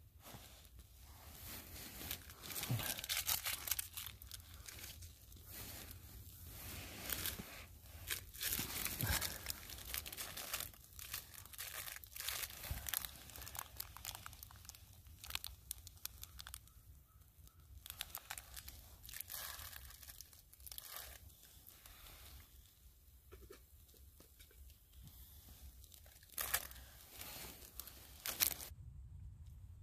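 Crinkly material being handled: on-and-off crinkling and rustling, with two sharper crackles near the end.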